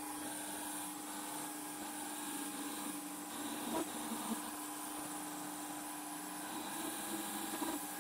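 Mini-lathe running at about 1,000–1,200 RPM on freshly replaced spindle bearings, a carbide insert taking light hand-fed cuts of 5 to 12 thou in cold rolled steel. The sound is a steady hum with one constant tone and a hiss, with a couple of faint ticks about halfway through.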